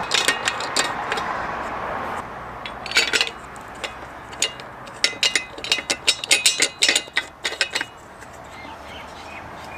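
Small metal clinks and clicks from bolts being fitted into a metal gas-bottle mounting bracket. There are a few at the start, then a busier run of quick, irregular clicks a little past the middle.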